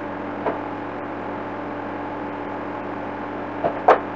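Steady machine-like hum with a low steady tone, with a brief knock about half a second in and two quick knocks near the end.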